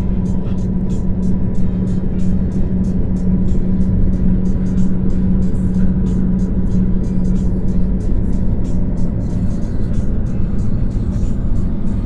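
Music with a fast, even ticking beat over the steady low rumble of a car's cabin on the move.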